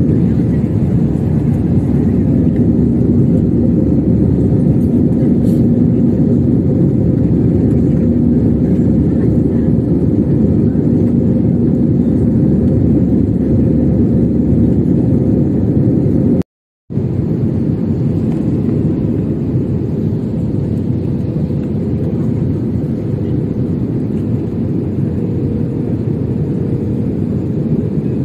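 Jet airliner cabin noise in flight from a seat over the wing: a steady, loud low rumble of engines and rushing air with a faint steady hum. The sound cuts out completely for about half a second roughly two-thirds of the way through, then resumes.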